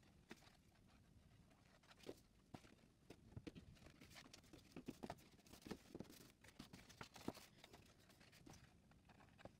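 Very quiet handling of a cardstock box: faint taps, clicks and paper rustles as it is pressed and turned, busiest in the middle.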